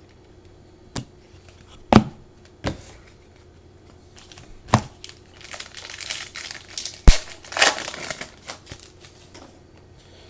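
Wrapper of a trading-card pack crinkling and tearing as it is opened, after a few sharp taps and clicks.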